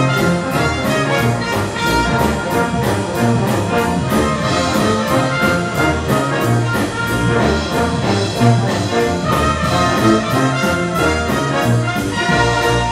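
Brass band playing a rock-and-roll arrangement: cornets, trombones and tuba in full chords over a steady drum-kit beat.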